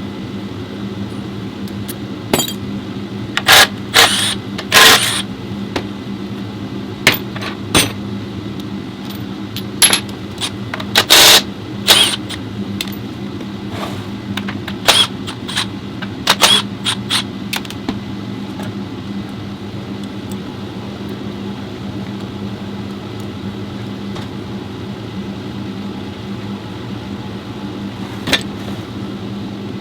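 Sharp metallic clanks and clicks from tools and metal parts being handled, bunched in the first half with one more near the end, over a steady low machine hum.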